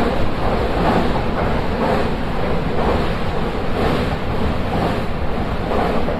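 Steady running noise of a Nankai electric train heard from inside the leading car: wheels rolling on the rails and the rush of air, swelling and easing a little without distinct clicks.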